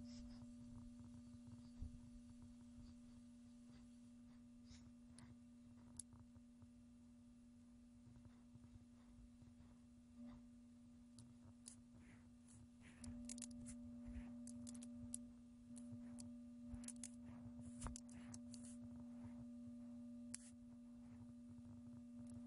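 Near silence: a faint steady electrical hum, a little louder from about halfway, with faint scattered clicks of a computer mouse.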